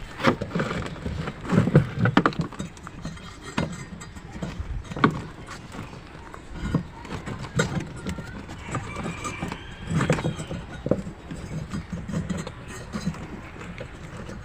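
Irregular knocks, clicks and rattles of hands working inside an old Sharp single-tub washing machine, refitting the drive belt onto the motor pulley.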